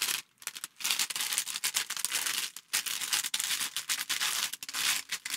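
Thin clear plastic bag crinkling and crackling in the hands with irregular short clicks, as it is handled and pulled at to get it open.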